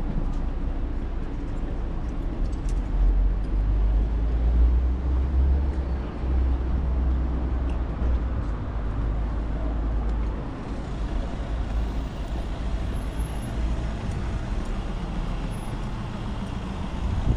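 City street traffic: a steady noise of passing motor vehicles, with a deep rumble that swells from about three seconds in and eases after about ten seconds.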